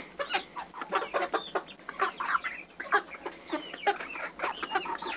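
A flock of young chickens clucking and calling, many short overlapping calls, some rising and falling in pitch.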